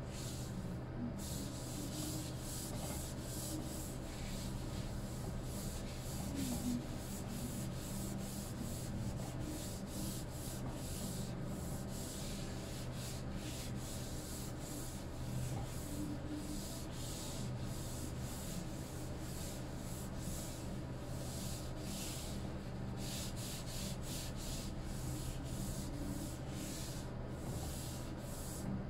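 A cloth rubbing oil into a wooden cutting board in repeated back-and-forth strokes, over a steady low hum.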